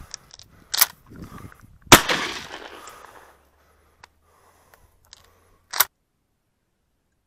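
A close shotgun shot about two seconds in, its blast echoing away over more than a second, with shorter sharp cracks before and after it.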